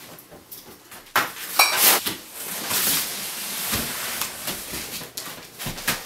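Handling noises in a room: rustling and scuffing with several sharp knocks and clicks, the loudest a little over a second in.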